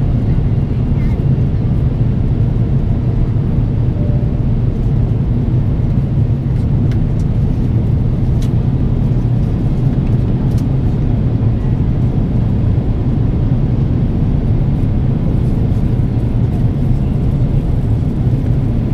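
Steady cabin noise of an Airbus A350-900 in flight: a constant low drone from its Rolls-Royce Trent XWB engines and the rush of air past the fuselage, unchanging throughout.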